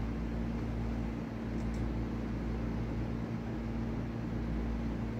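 Steady machine hum with a constant mid-low tone over a low rumble and hiss, like a room fan or air conditioner running, with a couple of faint light clicks about two seconds in.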